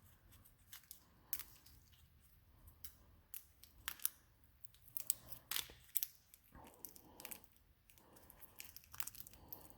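Scattered light clicks, taps and crinkling as the parts and packaging of a tyre plug kit are handled.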